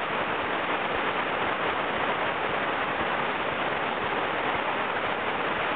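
Whitewater rapids rushing steadily: the constant roar of a breaking standing wave on a river.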